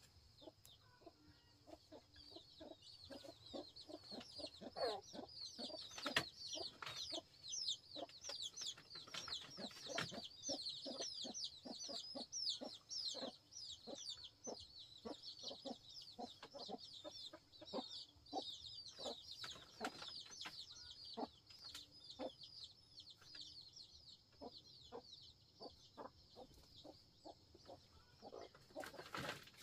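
Chickens calling: a dense, continuous stream of short high peeping chirps, with a few lower clucks and scattered soft taps mixed in.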